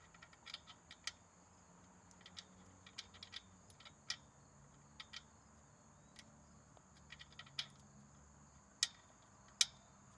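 Faint, irregular light clicks and taps, about a dozen scattered through, over a steady faint high-pitched hum.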